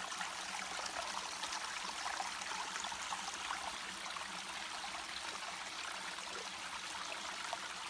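Small spring-fed waterfall splashing steadily, several rivulets of water trickling over a limestone outcrop into a creek.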